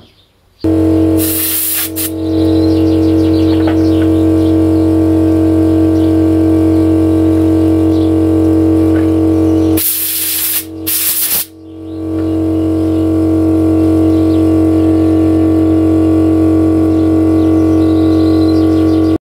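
Electric motor of a Faema MPN coffee grinder humming steadily on mains power, stopping briefly about halfway through with a hiss and then humming again.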